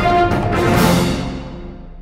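News channel's intro theme music, which swells into a whoosh less than a second in and then rings out and fades away.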